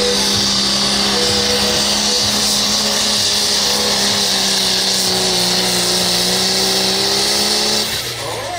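Light Limited Super Stock pulling tractor's turbocharged diesel engine running flat out at a high, steady pitch while dragging the weight-transfer sled. Near the end the engine note drops away as the pull finishes.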